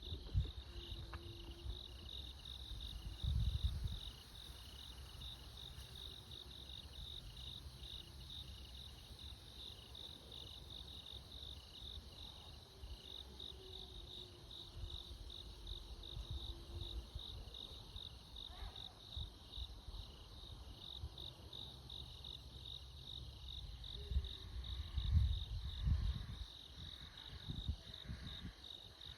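Night insects chirping in a steady pulsing rhythm throughout, with a distant dog howling in faint, long low notes that grow louder about halfway through. A man sneezes about two-thirds in, and near the end a Ural owl gives a harsh screech, over a few low rumbles that are loudest about three seconds in and near the end.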